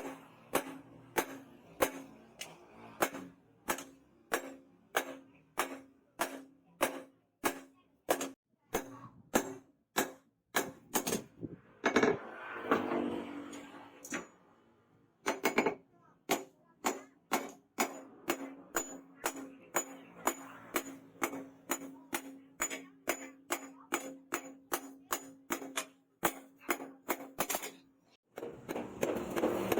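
Hammer blows on steel at an anvil, about two a second, each a sharp ringing strike, over a steady hum. The strikes break off twice for a short stretch of noisier sound, about twelve seconds in and again near the end.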